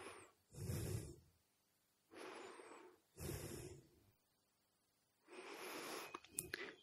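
A person breathing audibly, four short breaths in a row, with a few faint clicks near the end.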